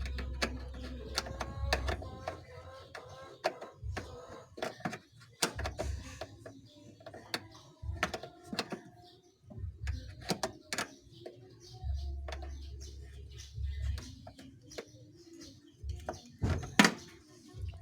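Irregular clicks and clinks of a hand tool loosening the wiper motor's mounting screws, with birds chirping in the background.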